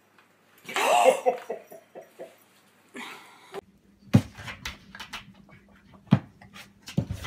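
An animal's whining cry that wavers up and down in pitch and pulses several times, followed by a series of sharp light knocks and taps.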